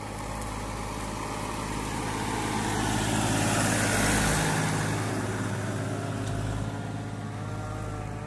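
Massey Ferguson 241 tractor's three-cylinder diesel engine running steadily under load as it pulls a tined cultivator. It grows louder as the tractor passes close by about halfway through, then fades as it moves away.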